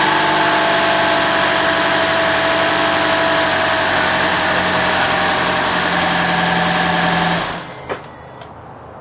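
Scion iQ's 1.3-litre four-cylinder engine idling steadily just after a cold start, with no sign of the deeper rattle the owner suspects is piston slap. The engine is switched off about seven and a half seconds in, followed by a single click.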